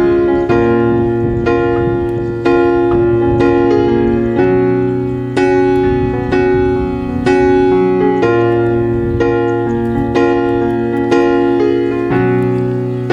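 Background piano music, slow chords struck about once a second.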